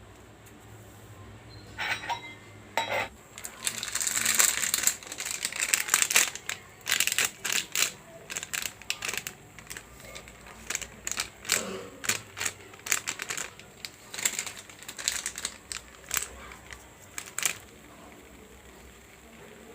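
Kitchen utensils being handled: a run of irregular clicks, taps and crinkling. It starts about two seconds in and stops a couple of seconds before the end.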